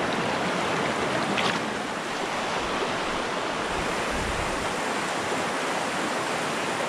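Small mountain stream running over rocks: a steady rush of water.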